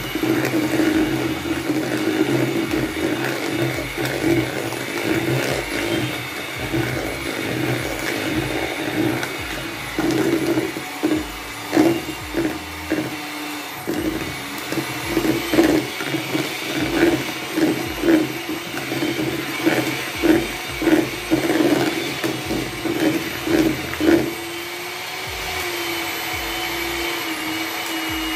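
Electric hand mixer running, its twin beaters whipping cake batter in a bowl, with frequent clatters of the beaters knocking against the side of the bowl. Near the end the knocking stops and the motor hums evenly, then cuts off.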